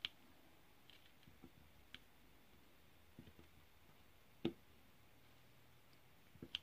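Scattered light clicks and taps of a diamond-painting drill pen setting square drills onto the canvas, the loudest about four and a half seconds in.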